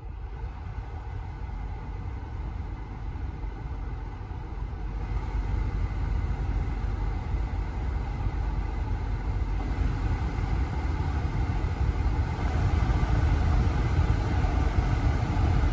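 Dashboard HVAC blower fan of a 2008 GMC Acadia blowing air out of the vents. It gets louder in steps, at about 5, 10 and 12 seconds in, as the fan is switched up through its speeds. This shows that the new blower motor resistor is working.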